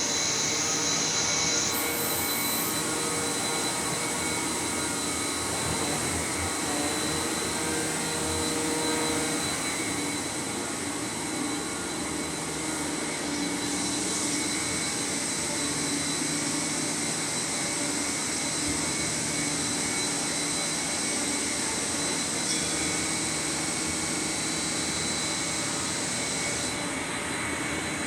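Steady running noise of industrial machinery: a continuous whir and hiss with several steady tones under it. The high hiss changes abruptly about two seconds in.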